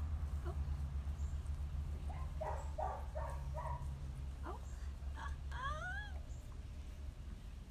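A dog whining: a quick run of four short whimpers, then a few rising whines, over a steady low hum.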